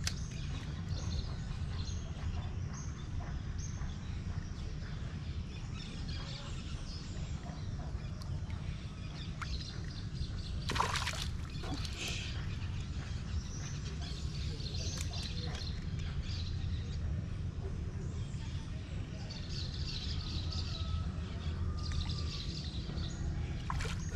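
Outdoor pondside ambience: birds calling on and off over a steady low rumble. A brief sharp burst of noise comes about eleven seconds in, and another right at the end.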